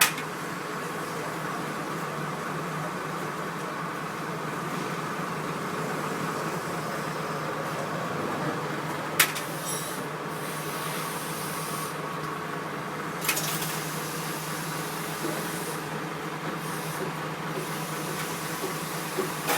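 Steady machine hum with hiss and a few constant tones, broken by two sharp clicks about nine and thirteen seconds in.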